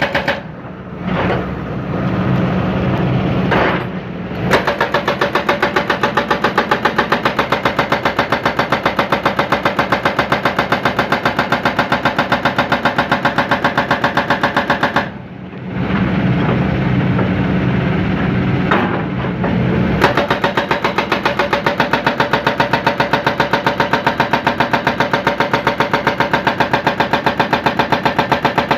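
John Deere 160C excavator's diesel engine running under work, its note changing twice for a few seconds: about a second in and again around fifteen seconds in.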